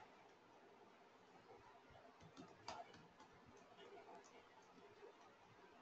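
Faint, sparse clicks of typing on a computer keyboard, a few keystrokes spread across a near-silent room, the clearest a little under three seconds in.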